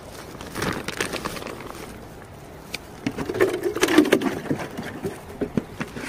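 Rustling, crinkling and knocks as a woven plastic sack, a plastic bag and a plastic jar with a screw lid are handled close by, busiest about three to four and a half seconds in.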